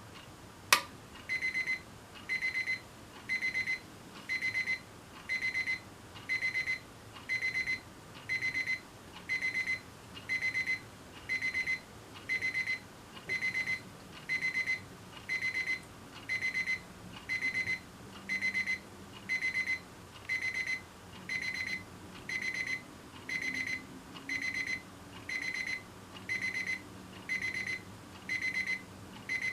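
Alarm clock going off: a sharp click, then the beeper sounding in bursts of rapid high beeps, about one burst a second.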